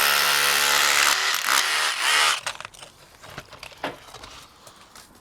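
Electric demolition hammer running in three bursts, breaking into a masonry wall, and stopping about two and a half seconds in. A few single knocks follow.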